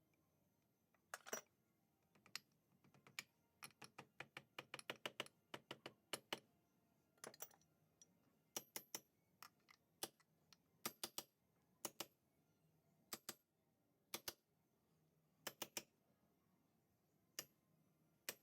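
Scattered light clicks and taps, singly and in quick clusters, from small engine parts and oil seals being handled on a workbench.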